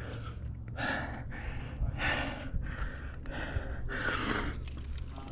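A rock climber breathing hard from exertion mid-climb: a run of sharp, loud breaths, roughly one a second.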